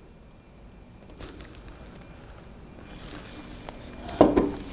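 Quiet handling of a hard plastic car trash bin turned over in the hands: a faint click about a second in, soft rubbing, and a short louder bump near the end.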